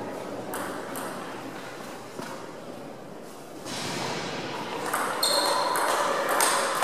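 Table tennis ball clicking off the table and paddles: a couple of single bounces early, then a quick rally of hits in the second half, with hall echo.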